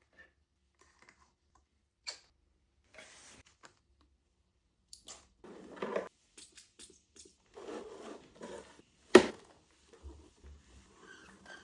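Intermittent rustling and crinkling of snack and candy packaging as items are handled, with light clicks and one sharp knock about nine seconds in.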